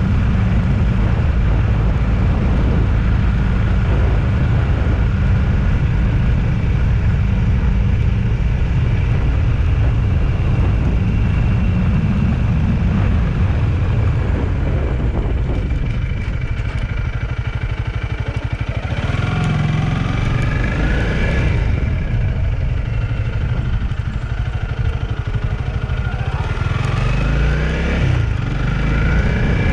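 Onboard sound of a vehicle on the road: a steady engine and road rumble, with the engine rising in pitch as it speeds up, once in the second half and again near the end.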